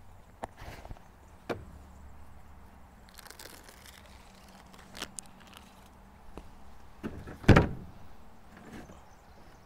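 Knocks and clunks of a camp oven and cake tin being handled, the loudest a heavy thunk about seven and a half seconds in.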